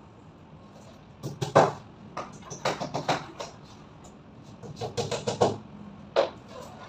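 Hammer tapping at the top of a WPC slat wall panel as it is fitted: sharp knocks in quick runs of several strikes, with short pauses between the runs.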